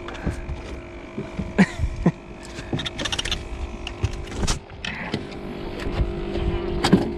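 Scattered knocks and bumps on a small boat's deck as someone moves about and handles gear, over a steady hum.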